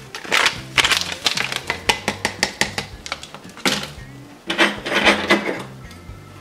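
Plastic-foil MRE drink pouch crinkling and being tapped against a glass mug in quick clicks as the last of the powder is shaken out, with louder crinkling bursts as it is handled and put aside. Background music with low notes runs underneath.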